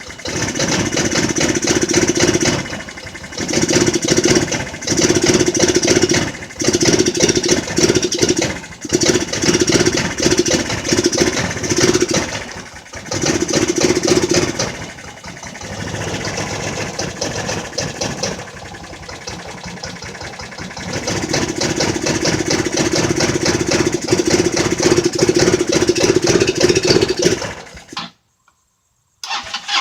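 Jonway Xpressway 250cc scooter's single-cylinder engine running after repairs for a no-start, revved again and again in short bursts, settling to a steadier idle, then held at higher revs for several seconds. Near the end the sound cuts off abruptly for about a second.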